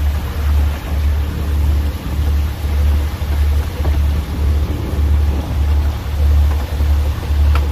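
Fishing boat's engine running with a steady low throb at about two beats a second, over a hiss of water spray on the sea.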